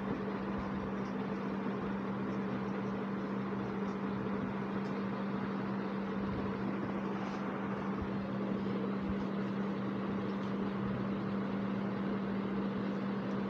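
Steady electrical hum with a constant low tone over a background hiss. Faint short scratches of a marker writing on a whiteboard come through now and then.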